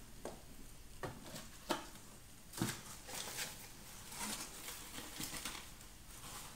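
Cardboard shipping box being handled and tipped. A few light knocks come in the first three seconds, then soft rustling.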